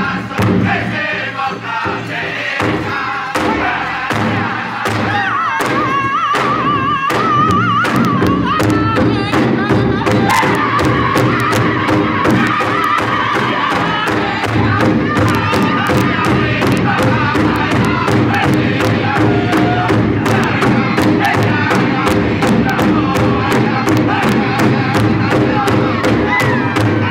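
Powwow drum group singing over a large powwow drum struck in unison with drumsticks in a steady beat. About five seconds in, a single high wavering voice leads, and from about ten seconds on the whole group sings together over the drum.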